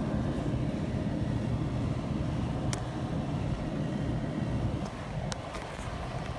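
Blower running steadily, a rush of air over a low motor hum, as it blows dust out of a refrigerator's condenser coil; a few faint ticks sound through it.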